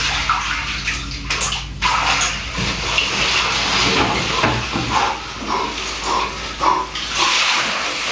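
Water in an ice-filled bathtub sloshing and splashing irregularly as a person moves his arms and shifts his body in it.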